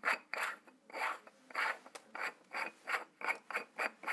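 A threaded cap being unscrewed by hand from the objective end of a stereo microscope head. The fine thread rasps in quick, repeated short strokes, about three a second.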